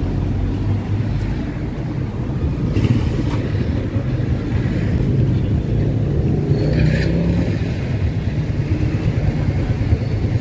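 City street ambience: a steady low rumble of road traffic, with a few faint brief sounds over it.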